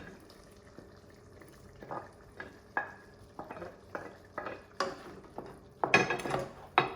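A spoon scraping and knocking in a pan as grilled chicken pieces and vegetables go into a frying masala sauce and are stirred in. The short scrapes and clatters come irregularly, the loudest near the end.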